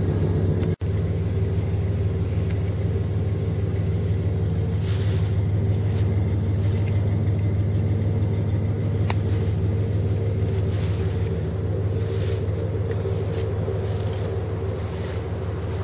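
Steady low drone of a car engine and road noise heard from inside the cabin while driving.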